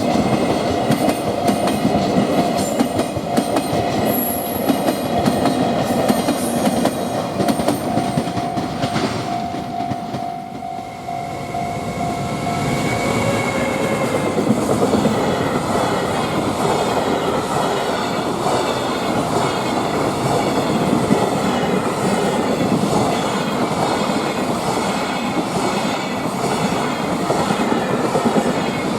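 Freight train rolling past at speed, its wheels clacking rhythmically over the rail joints. About ten seconds in the sound dips briefly, then another freight train is passing with the same steady clatter.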